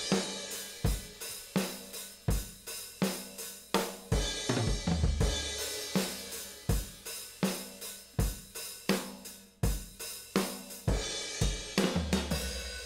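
Sampled acoustic drum kit from the Drum Tree library playing a steady rock groove in its 70s UK hard rock demo: kick and snare hits under continuous hi-hat and cymbal wash.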